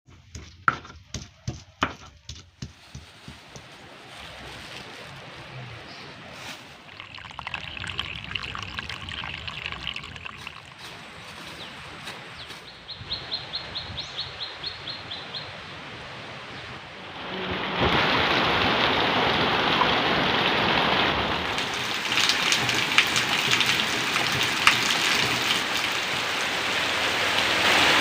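A few sharp clicks at the start, then birds chirping over a soft trickle of water, with one bird giving a quick run of high chirps midway. About two-thirds of the way through, a loud steady hiss of heavy rain sets in.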